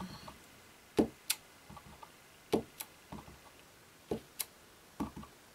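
Clear acrylic stamp block clicking and tapping as it is inked on an ink pad and pressed onto cardstock: short sharp clicks, mostly in close pairs, about every second and a half.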